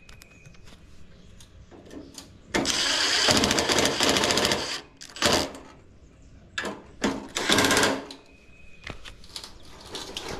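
Cordless impact driver hammering a screw in: one run of about two seconds, then three short bursts as the screw is snugged in. The screw is a tight, hard one to drive.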